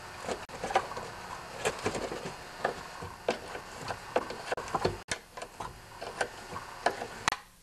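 Small open-end wrench clicking and tapping against a small fuel-tank mounting bolt and its sheet-metal bracket as the bolt is turned a little at a time, in irregular light metallic clicks.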